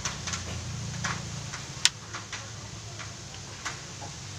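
A few small clicks and taps from a homemade wooden rubber-band gun being handled, with one sharp snap about two seconds in, over a low steady hum.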